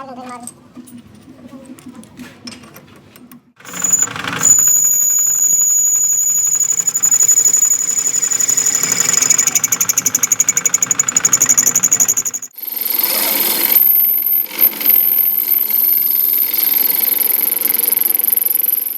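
Power grinding tool working the teeth of a rusted metal gear. A softer rattle comes first, then from about four seconds in it runs loud with a steady high whine over a fast rattle. It breaks off for a moment about two thirds of the way through and starts again with a higher whine.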